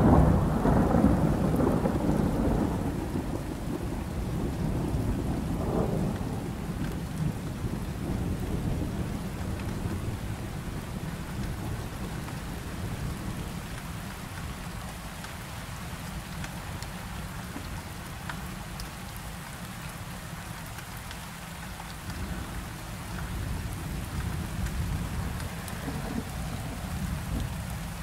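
Steady rain with thunder. A loud rumble fades over the first few seconds, a short louder clap comes about six seconds in, and another low rolling rumble swells up near the end.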